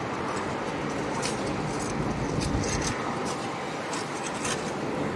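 Construction machinery working on a railway site: diesel excavators and dumpers running steadily, with scattered short scrapes and clinks of metal against gravel and earth.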